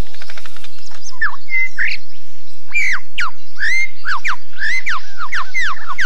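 Superb lyrebird singing a loud, fast run of varied whistled notes, many sweeping steeply down and some rising: its mimicry of other birds' songs. A quick rattle of clicks comes just before the whistling begins, about a second in.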